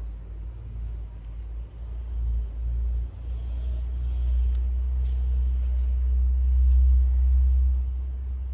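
A steady low rumble that grows louder about three seconds in and eases off near the end.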